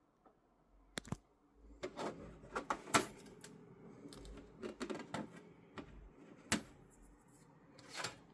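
Irregular clicks, taps and light plastic clatter, starting about a second in: finished 3D prints being popped off a printer's removable flexible build plate and handled.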